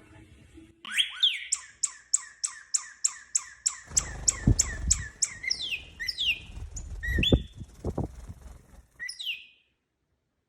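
A bird chirping: a fast, even run of short, high, falling chirps, about three a second, then a few longer sliding calls, over some low rumbling noise. It cuts off suddenly near the end.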